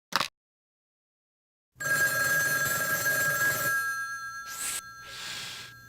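Telephone ringing: one steady ring of about two seconds, starting nearly two seconds in, that fades away. It is followed by two short soft hisses, and there is a brief click at the very start.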